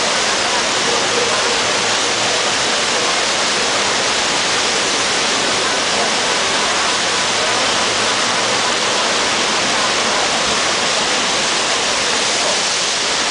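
Steady rushing of a FlowRider surf simulator's pumped sheet of water, pouring fast up and over the sloped riding surface to form a standing wave.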